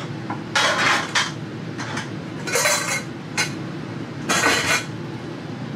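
Metal frying pans and a pot clattering and knocking as they are stacked into a kitchen cabinet, in several short bursts, over a steady low hum.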